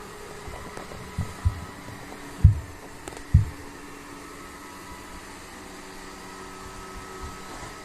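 Four dull, low thuds in the first few seconds, the last two the loudest, over a steady mechanical hum.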